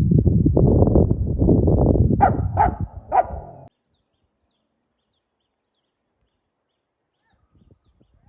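Dogs in a loud, rough scuffle, with three sharp barks in quick succession about two to three seconds in. The sound cuts off abruptly before four seconds, leaving faint high bird chirps.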